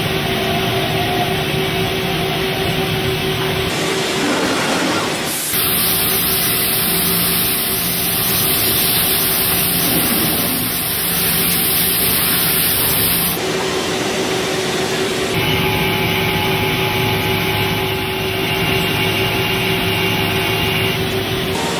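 Mazak Integrex i-400ST mill-turn machine cutting a metal shaft: steady machining noise with a spindle hum. The sound changes abruptly about five seconds in, again about thirteen seconds in, and once more about fifteen seconds in, as the cutting operation changes.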